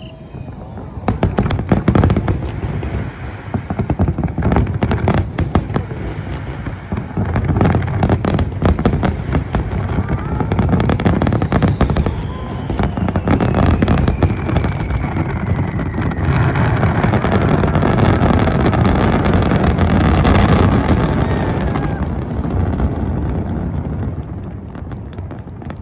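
Aerial fireworks display: shells burst one after another in loud bangs with crackling, and a falling whistle sounds midway. The barrage thickens into a continuous crackling rumble in the latter half, then eases off near the end.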